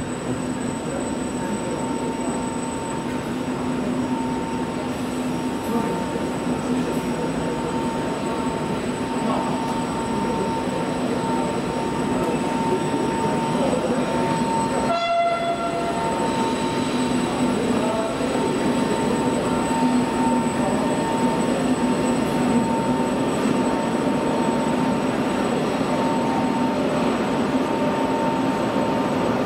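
Trenitalia Intercity Notte train running: a steady rumble of travel with a constant hum, and a short pitched tone about halfway through.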